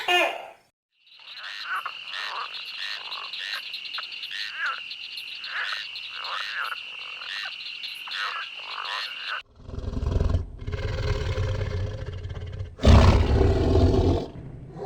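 Frogs croaking in a chorus, many short calls over a steady high-pitched trill. About two-thirds of the way in, this cuts to a large animal's deep, growling roar, which gets louder near the end.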